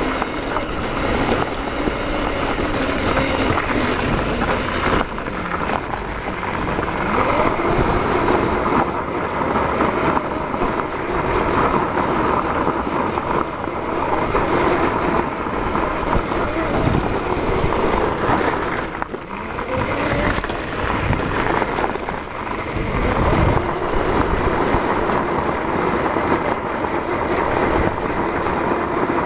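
Onboard driving noise of an electric go-kart with two 48 V 1,000 W motors: a steady rush of wind and tyre noise, with the motors' whine rising and falling with speed. The noise dips briefly about two-thirds of the way through.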